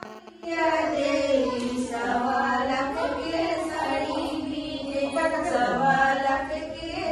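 A group of women singing a Chhath folk song together, starting about half a second in.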